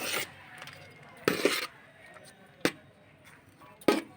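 A spoon or spatula scraping and knocking against the pan while hot fried rice is stirred and mixed: four separate strokes, a longer scrape about a second in and two sharp knocks near the end.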